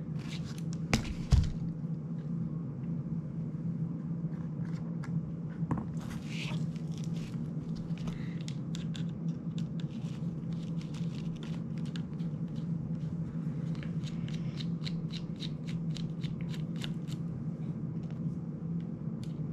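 Small clicks and ticks of a precision screwdriver working the screws of an FPV drone frame and of hands handling the frame, with a couple of louder knocks about a second in, over a steady low hum.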